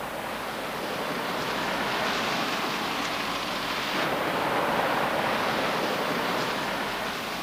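Steady outdoor rushing noise, swelling slightly in the middle, with no voices.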